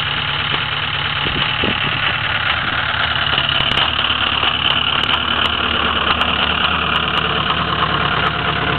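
Ford 6.0 L Power Stroke V8 turbodiesel running steadily at its raised cold-start high idle, the engine still cold after starting unplugged in freezing weather.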